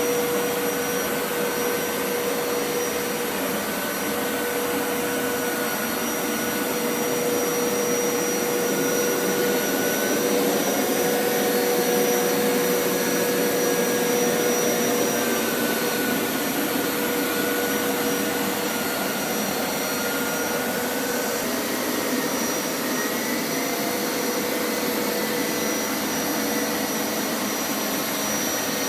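Hoover Power Scrub Elite carpet washer running steadily over carpet, its suction motor giving a constant whine over a wide rushing noise.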